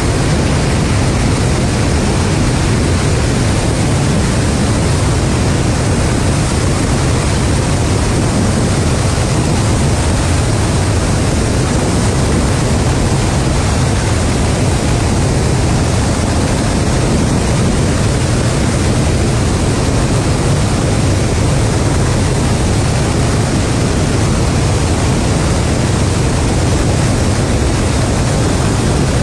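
Tu-160 bomber in cruising flight: its four NK-32 turbofan engines and the airstream over a camera mounted on the airframe, heard as a steady, deep rushing noise that does not change.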